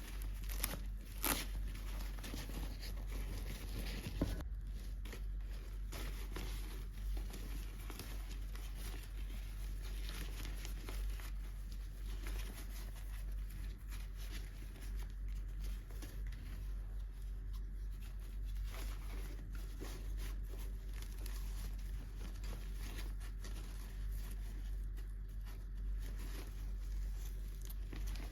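Plastic toy packaging being crinkled and torn open by hand, a continuous fine crackling with a few sharper snaps in the first few seconds, over a steady low hum.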